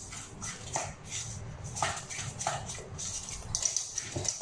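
A hand mixing flour into beaten egg in a stainless steel bowl: irregular wet stirring strokes with light brushes and taps against the metal.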